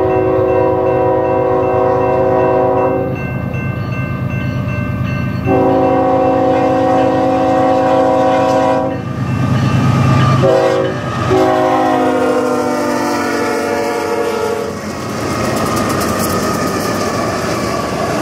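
Horn of a BNSF freight train's lead diesel locomotive sounding long, long, short, long, the standard grade-crossing signal, over the steady drone of the locomotives' engines; the last long blast drops in pitch as the locomotive passes. After that the intermodal cars roll by with a steady clickety-clack of wheels over the rails.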